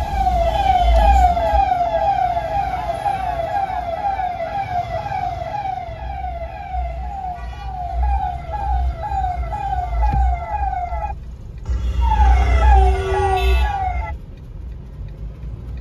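Electronic vehicle siren sounding a fast, repeating warble. It cuts off about eleven seconds in, sounds again briefly, then stops. Heard from inside a moving car, with engine and road rumble underneath.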